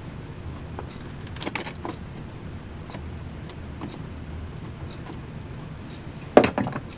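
Small metal clinks and taps from hand tools and rivet hardware, in two short clusters of quick clicks: one about a second and a half in, a louder one near the end. A low steady hum underneath.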